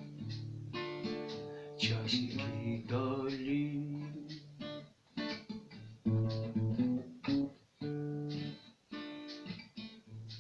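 Acoustic guitar playing plucked and strummed chords, the instrumental close of a bard song, with short breaks between some chords.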